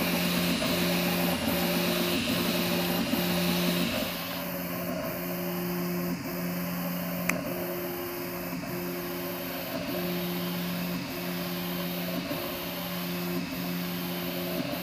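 Prusa 3D printer printing, its stepper motors sounding a steady two-note hum that stops and restarts about every two-thirds of a second as the printhead sweeps back and forth, over a steady hiss of cooling fans.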